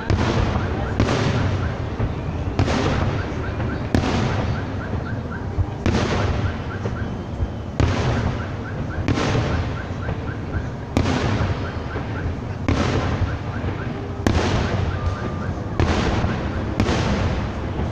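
Fireworks display: aerial shells bursting with sharp bangs about every one and a half to two seconds, around ten in a row, each trailing off in echo.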